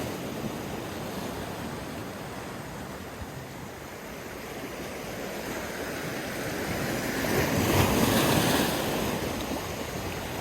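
Waves washing with a steady rush, one surge swelling louder about seven seconds in and easing off again.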